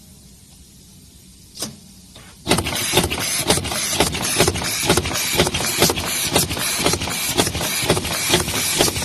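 Tyre-studding machine: a single click, then about two and a half seconds in it starts up with a loud, steady mechanical noise and sharp repeated clacks about two to three a second as it drives studs into the tyre.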